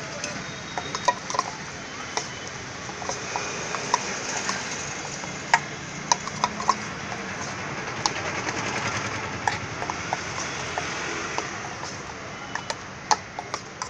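Steel spoon clinking and scraping against a stainless-steel bowl as cauliflower pieces are stirred into a wet masala batter, in irregular clinks over steady background noise.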